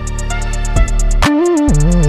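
Background music with a beat: fast, even ticks like a hi-hat over a deep held bass, with a melody stepping up and down.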